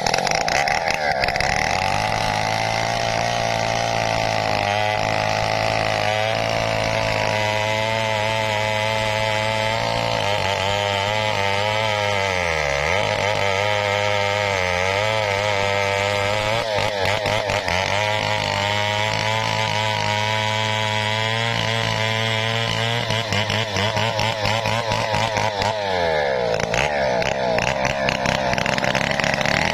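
Large two-stroke Stihl chainsaw running under load, cutting into a hardwood tree trunk, its pitch wavering as the chain works through the wood. The revs dip briefly about 13 seconds in and again near 26 seconds.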